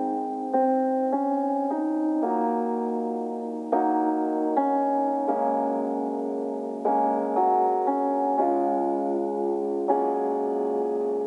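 Slow keyboard music: soft piano chords held and changing every second or so, with no bass.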